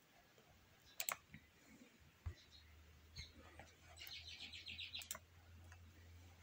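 Near silence with a few faint clicks. A low hum comes in about two seconds in, and a short, faint, high chirping trill follows about four seconds in.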